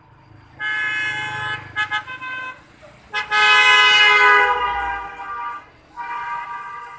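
Electric horn on a motorcycle front end being honked in a series: a blast of about a second, a few short toots, a long blast of about two seconds, then another short blast near the end.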